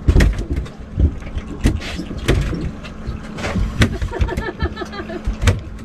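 Repeated knocks and thumps on a fishing boat, over the steady hum of the boat's motors running.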